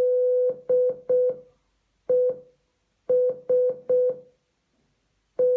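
Morse code beeps from an Amazon Echo smart speaker, a single steady mid-pitched tone spelling the word "LESS". One long dash and two short dots end the L, then after a pause a single dot for E, then three dots for S, and the first dot of the final S near the end.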